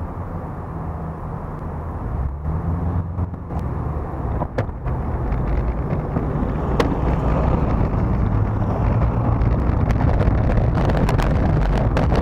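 Car engines running in slow street traffic, a steady low hum, with scattered sharp clicks and knocks. From about halfway on, a rushing noise builds as the bicycle picks up speed.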